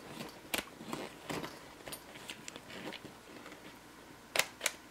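Scattered light clicks from the plastic collars and switches of a DeWalt 20V MAX cordless hammer drill being turned by hand, with two sharper clicks near the end.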